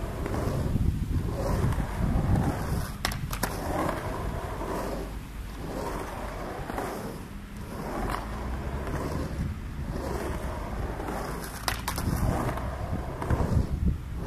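Skateboard wheels rolling over rough concrete, the rumble swelling and fading as the rider pumps back and forth between the ramps. A few sharp clacks come from the board about three seconds in and again near the end.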